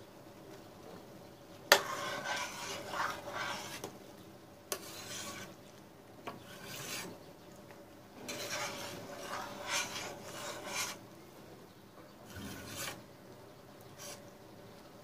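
A metal spoon scraping and stirring through simmering sour cherry jam in a stainless steel pot while skimming off the foam, in several separate passes. A sharp knock of the spoon comes about two seconds in.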